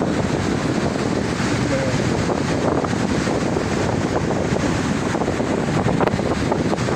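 Wind buffeting the microphone: a steady, loud rushing noise with no break.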